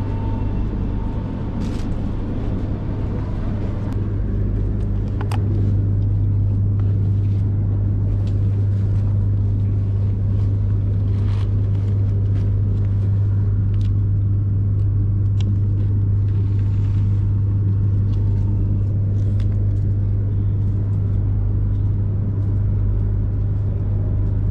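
Steady low hum and rumble inside a Shinkansen passenger car, a little louder from about five seconds in, with a few light clicks and knocks scattered through it.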